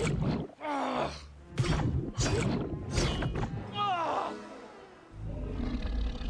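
Animated film soundtrack: music with a run of six short, loud sound effects, some with a gliding pitch, about every 0.7 s. A low rumble sets in near the end.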